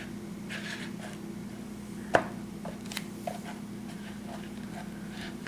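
Quiet handling noises over a steady low hum: a sharp click about two seconds in, then a few faint taps and a soft scrape.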